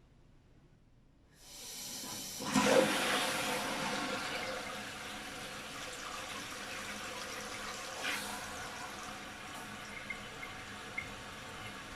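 Water comes on in a toilet about a second and a half in, with a loud gushing surge just after. It settles into a steady hiss of the tank filling through a newly installed Korky fill valve.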